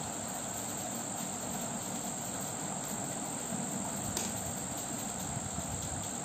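Steady background hiss with a constant high-pitched whine, and one faint click about four seconds in.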